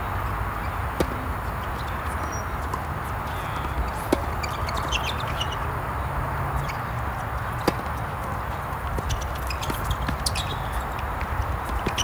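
Tennis racket strikes during a doubles rally on a hard court: a serve about a second in, then single sharp hits at about four and about seven and a half seconds, with lighter clicks and scuffs of footwork near the end, over a steady background hiss.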